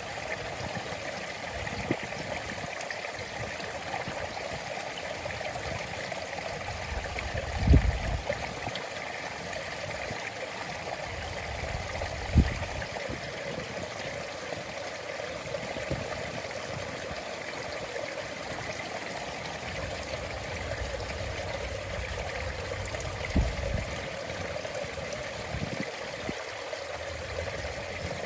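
Stream water flowing and trickling in a steady rush, broken by three short low thumps that stand out above it.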